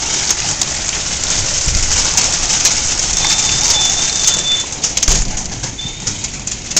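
Heavy rain and hail beating down on a wooden deck: a dense hiss packed with sharp clicks of hailstones striking. There is a thump about five seconds in, and after it the downpour sounds quieter.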